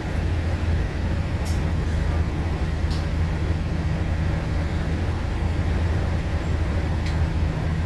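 MAN ND323F double-decker bus running with a steady low drone under an even wash of road noise, with a few brief faint clicks.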